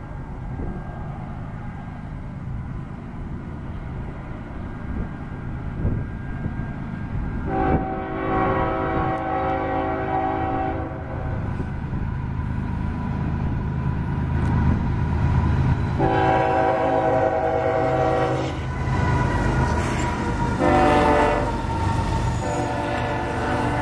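Approaching freight train led by a GE ES44AC-H (Tier 4 GEVO) diesel locomotive, its rumble growing louder as it nears. The locomotive's air horn sounds two long blasts, a short one and a long one that runs into the end, the standard grade-crossing signal.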